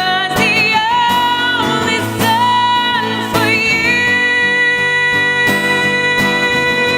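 Acoustic band playing a cover song: a singer over acoustic guitar accompaniment, the voice wavering with vibrato on short phrases, then holding one long note through the second half.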